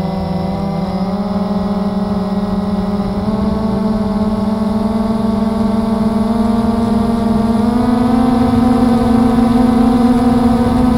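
Blade 350 QX quadcopter's four electric motors and propellers droning, heard from the camera mounted on the craft. The pitch steps up a few times and the sound grows slowly louder as it climbs.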